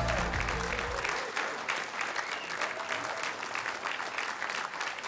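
Studio audience applauding after a circus act. The backing music fades out about a second in, leaving the clapping.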